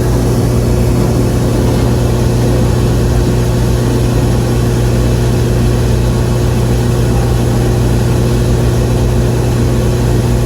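Daikin rooftop gas heating unit running at high fire: a loud, steady low hum from its blower and burner, with a faint constant tone above it.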